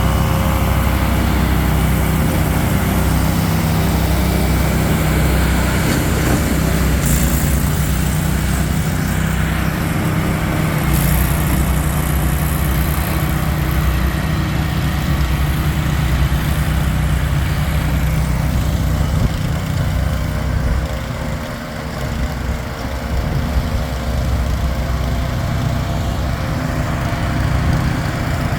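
Mahindra eMax 20 compact tractor's diesel engine running steadily while clearing snow with a Bercomac snowblower. The engine dips briefly in loudness about 21 seconds in.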